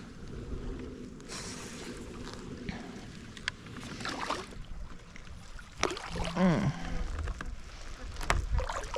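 Wind on the microphone and water moving around a fishing kayak, with a few sharp handling clicks and knocks. About six seconds in there is a brief hummed vocal sound.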